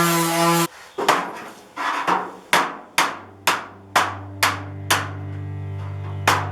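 Hammer blows on metal, about two a second, each one ringing briefly, with a short gap near the end. A low steady hum comes in about three seconds in.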